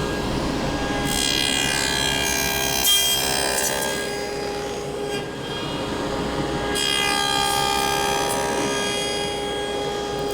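Table saw with a dado stack running steadily while it cuts through a wooden test piece on a dado sled to form the center finger of a finger joint. Two passes of cutting, a few seconds each, with a short gap between them.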